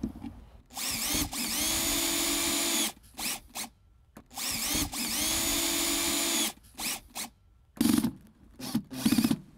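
Cordless drill/driver driving screws to fasten a downspout filter box in place: two runs of about two seconds each, each whirring up in pitch and then holding steady, with a few short trigger blips after each run.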